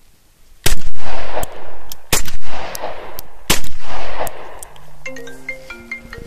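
Several gunshots in quick succession, loud sharp cracks each trailed by a short echo, over about three and a half seconds. A music track with plucked stepped notes starts near the end.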